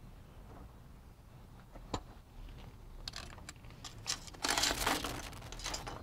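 Workshop handling noises: a few light clicks, then a burst of cloth rustling as a rag is rubbed over the bicycle crank parts about four and a half seconds in.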